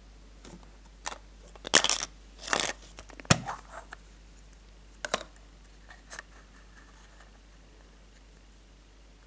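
Hard plastic surprise-egg capsule being handled and pulled open: scraping, rattling handling noises, then a sharp plastic snap a little over three seconds in as the halves come apart, followed by a few lighter clicks.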